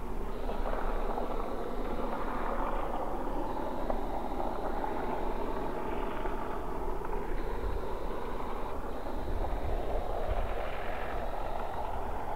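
British Army Land Rover driving down a gravel track: a steady engine note with tyre noise on the loose surface.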